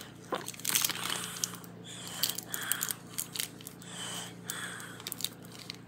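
Foil candy wrapper handled in the fingers, giving faint, scattered crinkles and small crackles.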